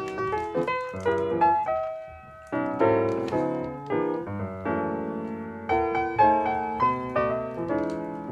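Piano music: a melody over chords, each note struck and fading, with a short quieter pause about two seconds in.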